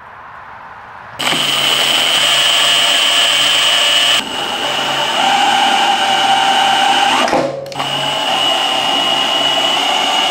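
Cordless drill spinning the pinion of a Sterling 10.5-inch rear axle, rolling the ring and pinion gears through yellow marking paint to show the gear contact pattern for setting pinion depth. It starts about a second in and runs with a steady whine, dipping briefly near 4 seconds and stopping for a moment near 7.5 seconds.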